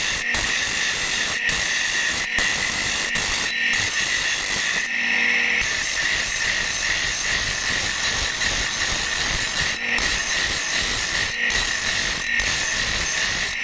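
Electric bench grinder's abrasive stone wheel grinding a steel axe head: a steady, high-pitched grinding hiss as the metal is held against the wheel. About five seconds in the grinding briefly changes and a low motor hum shows through.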